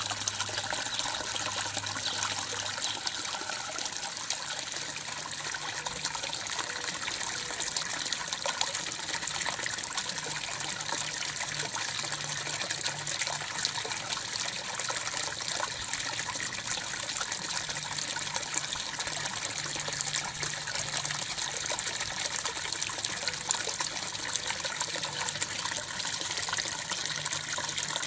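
Water from a garden pond's water feature trickling and splashing steadily into the pond.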